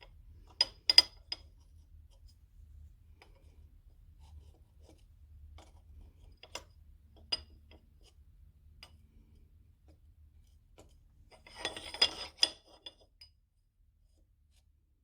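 Sharp clicks and a short clatter of small metal parts or tools being handled on a workbench, over a faint low hum that cuts off near the end.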